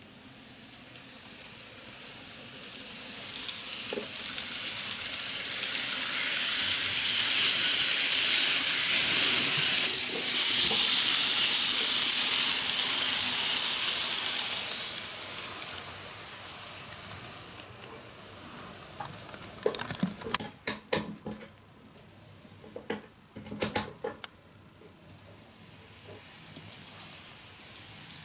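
N-gauge model of a Kiha 81/82-series diesel express running on sectional track: a hissing rattle of wheels and motor grows louder as the train passes close, then fades. Two short runs of sharp clicks follow later on.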